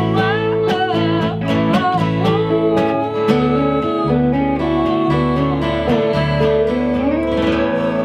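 Indie-folk band playing: strummed acoustic guitar over a steady electric bass line, with electric guitar.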